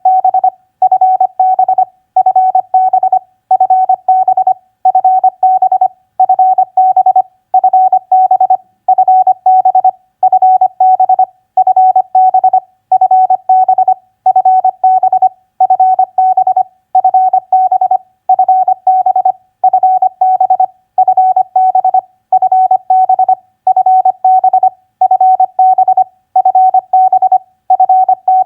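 Morse code (CW) tone keyed at 25 words per minute, sending short practice groups of common contact abbreviations. The single mid-pitched beep repeats in dot-and-dash groups about every second and a half, with a short pause between groups.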